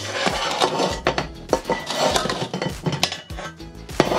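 Stainless steel saucepan knocking and scraping with repeated metallic clinks as the last of the freshly popped popcorn is tipped out of it into a bowl.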